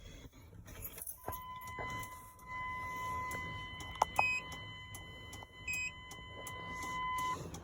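A steady electronic tone sounds for about six seconds and cuts off near the end. Keys jangle and a few clicks and short higher beeps come over it, with a faint low hum.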